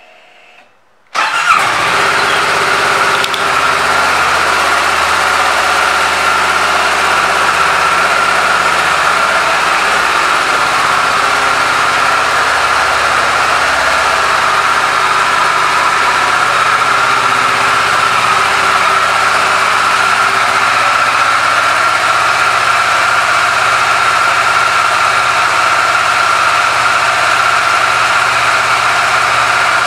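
2012 Kawasaki Versys 650's parallel-twin engine starting about a second in, then idling steadily.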